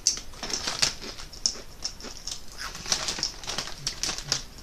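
Kettle-cooked potato chips crunching while being chewed close to the microphone: a run of irregular, crisp cracks.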